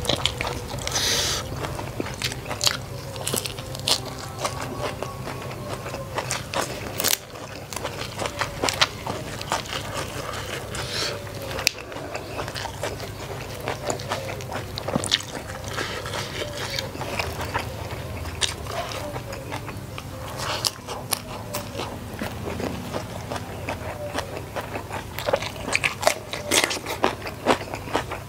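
Close-miked eating by hand: crunchy bites and chewing of rice with raw vegetables, with wet mouth sounds and fingers scraping and picking food from the bowl. The bites and clicks come thicker and louder near the end.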